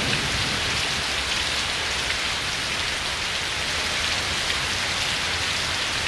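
Heavy rain pouring down steadily, an even hiss of a dense downpour with no break.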